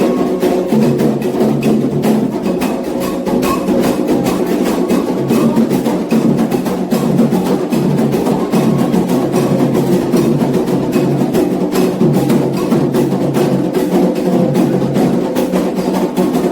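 Candomblé ritual music: atabaque hand drums played in a fast, dense, steady rhythm, with sustained pitched sound, likely chanting voices, running underneath.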